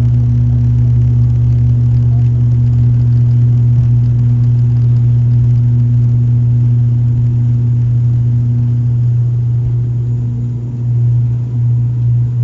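ATR 72-600's twin turboprop engines and six-blade propellers droning steadily in the cabin in flight, a deep even hum with a faint higher tone over it. The drone wavers briefly near the end.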